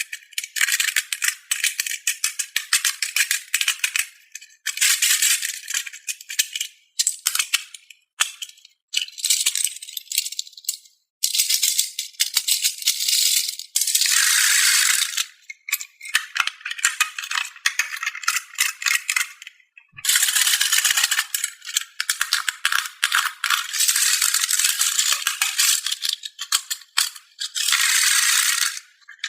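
Many small hollow plastic balls clattering against each other in repeated bursts of a few seconds, with short breaks between them, as they are poured or stirred about.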